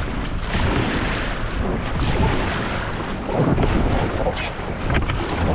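Rushing river water and wind buffeting the microphone aboard a whitewater raft, a steady loud rush with a low rumble.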